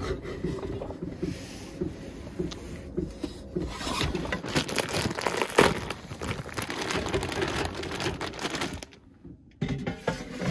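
Wooden spoon scraping and stirring ground beef and onions in a pan, then plastic food packaging crinkling for several seconds. A loud knock comes at the very end as the air fryer basket is handled.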